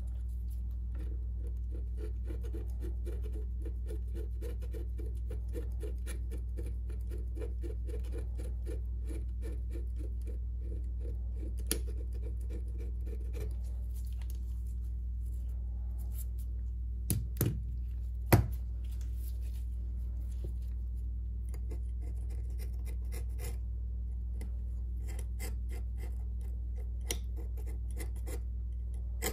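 Metal pry tool scraping old adhesive off the rim of a Samsung Galaxy Note 9's frame in quick, repeated small strokes, with three sharp clicks of the tool against the frame a little over halfway through. A steady low hum runs underneath.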